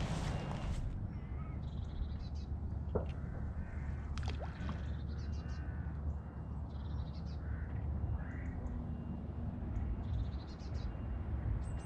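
Crows cawing several times over a steady low rumble of wind on the microphone, with a couple of faint clicks.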